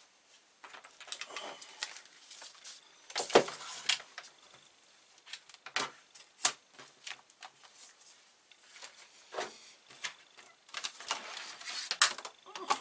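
A computer monitor and its cables being handled and set down on a desk: scattered knocks, clicks and rustles, with the two sharpest knocks about three and a half and six and a half seconds in.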